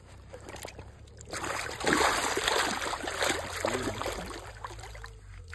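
Water splashing and sloshing as a common carp is released from a wet retention sling into shallow lake water and kicks free with its tail, loudest about two seconds in.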